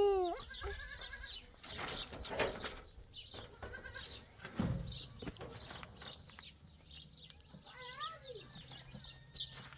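Goats bleating from inside a shed: one loud, short bleat that rises and falls right at the start, then several shorter bleats, the last about eight seconds in. A few knocks and scrapes of a wooden door being handled come in between.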